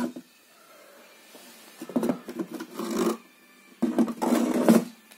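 Two bursts of scraping, rubbing noise, each about a second long: one about two seconds in and one about four seconds in, with a faint hum between them.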